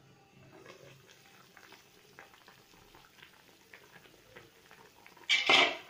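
Vegetable broth with sliced sponge gourd bubbling at a boil in an open pan, a faint scattered crackle of bubbles, just come to the boil. About five seconds in there is a short loud noise.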